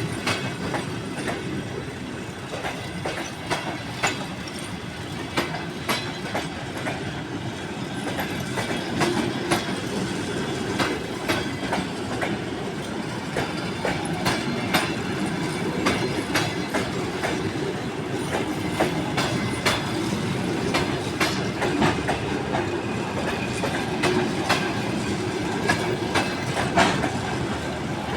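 Passenger coaches of an express train rolling along the track: a steady rumble of wheels on rail with frequent sharp clicks as the wheels cross rail joints.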